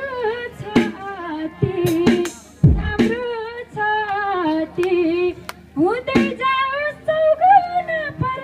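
Woman singing into a microphone, amplified, in short phrases with gliding, wavering notes.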